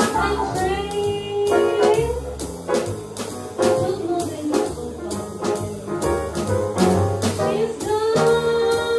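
Live small-group jazz: a woman sings a jazz standard, holding long notes near the start and near the end, backed by upright bass, piano and drums with a steady beat of drum and cymbal strikes.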